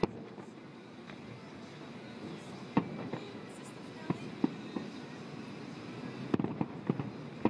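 Aerial fireworks shells bursting: a string of sharp bangs, the loudest about three seconds in and a quick cluster of several near the end, over a steady background rumble.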